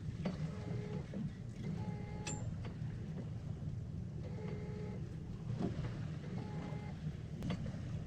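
Steady low rumble of a boat's engine running at idle under wind, with four short, flat-pitched squeaks in two pairs.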